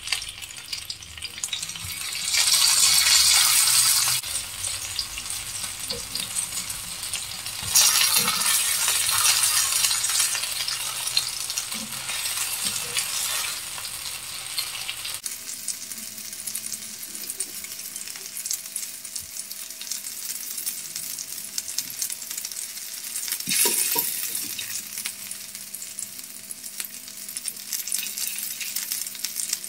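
Battered fish steaks shallow-frying in hot oil in a pan: a steady sizzle that swells loudly three times as the pieces are turned with tongs.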